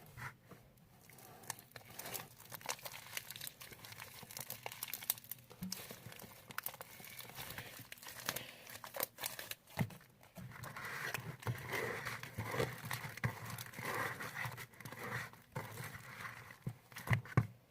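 Homemade glue slime being kneaded and worked by hand in a bowl: small irregular sticky clicks and rustles, getting busier about halfway through.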